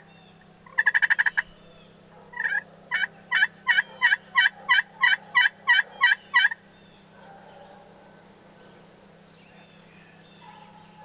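Turkey calls imitating a wild turkey: a short, loud rattling burst about a second in, then a run of about a dozen evenly spaced yelps, about three a second, that stops about six and a half seconds in.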